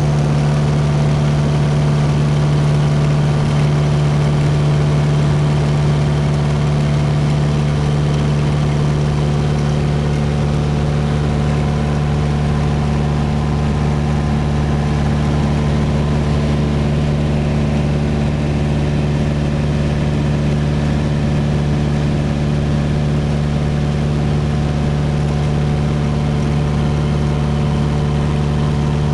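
Light aircraft's piston engine and propeller droning steadily, heard loud inside the cabin in level cruise flight. The pitch holds constant throughout.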